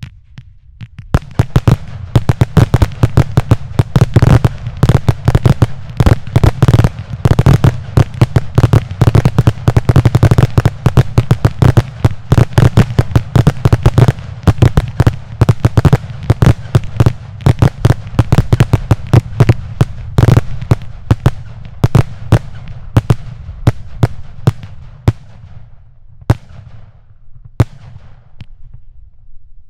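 Twelve Blackboxx 'Vogelschreck' category F2 fireworks batteries firing salute shots together: a dense, rapid barrage of sharp bangs that thins to scattered single bangs near the end.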